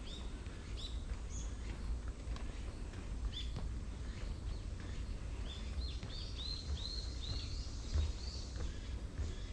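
Small birds chirping in short, scattered calls, then a quick run of about six chirps a little past the middle. A steady low rumble runs beneath.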